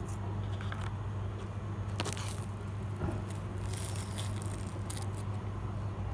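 Scattered crackles and rustles of fried chips and a battered sausage being handled and chewed, over a steady low hum.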